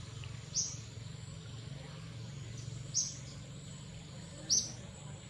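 A bird giving three short, sharp, high chirps a couple of seconds apart, over a steady low rumble.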